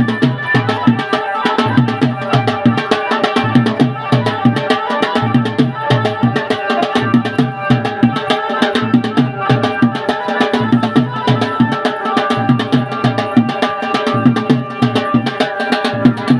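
Indian wedding band (baja) music: quick, continuous drum strokes under a sustained melody.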